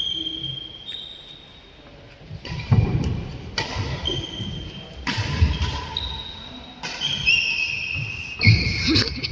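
A badminton doubles rally: shoes squeaking in short high squeals on the wooden court floor, sharp racket strikes on the shuttlecock a few times, and players' footsteps thudding, in a large hall.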